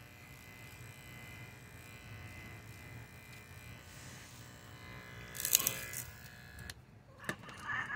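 Electric hair clippers buzzing steadily as they trim a cat's fur, with a loud rattle about five and a half seconds in; the buzz cuts off suddenly near seven seconds, followed by a click.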